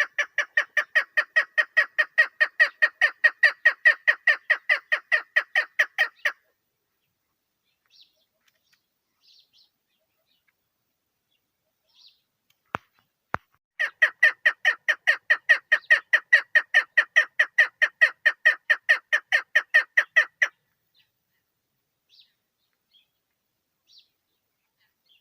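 Female chukar partridge calling: two runs of rapid, evenly repeated notes, about five or six a second, each lasting some six seconds, with a pause of several seconds between them broken by two sharp clicks.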